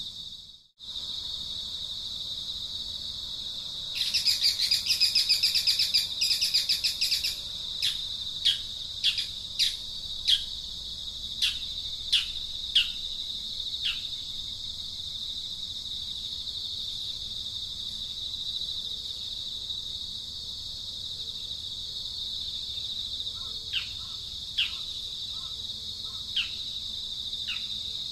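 Insects droning steadily at a high pitch. A bird breaks in with a dense burst of rapid chattering about four seconds in, followed by a string of short, falling call notes, and a few more falling notes near the end.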